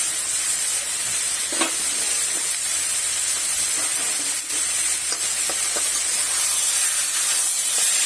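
Chopped vegetables sizzling steadily in a pan, with a few short scrapes as they are stirred.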